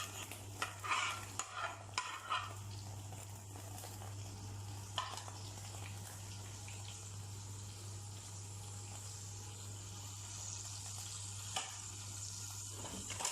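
A few clattering knocks of a pan and utensils, then a steady sizzle of cooking oil in a frying pan with a constant low hum under it and an occasional single knock.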